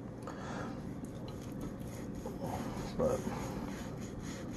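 A large knife sawing back and forth through a smoked bone-in pork sirloin roast, the blade rubbing through the peppery crust and meat with soft, repeated strokes.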